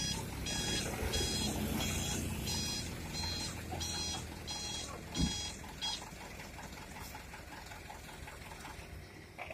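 Dump truck's electronic reversing alarm beeping about twice a second over a diesel engine running low. The beeping stops about six seconds in.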